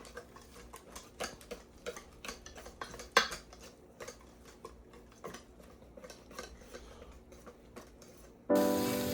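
A utensil clicking and tapping against a mixing bowl while cornbread batter is stirred, several light clicks a second with one louder knock about three seconds in. Near the end it cuts abruptly to a louder steady hiss with sustained tones.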